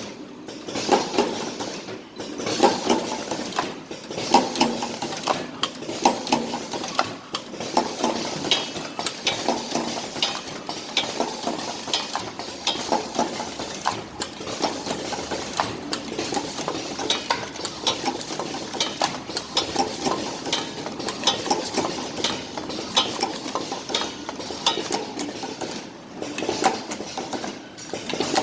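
Automatic cartoning machine running, with dense, continuous clicking and clacking from its mechanism.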